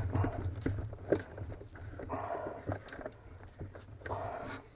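Handling noises from work inside a freezer compartment: scattered clicks and short scrapes, over a low steady hum.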